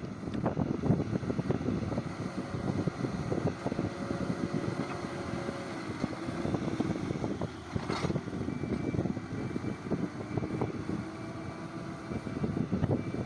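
A heavy construction machine's engine running, with wind buffeting the microphone. In the second half a faint high beep repeats at short intervals.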